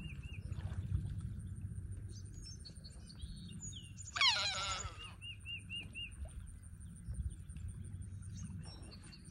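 Wild birds calling: short runs of quick repeated chirps, about five a second, and one loud falling squeal about four seconds in, over a low rumble and a steady high whine.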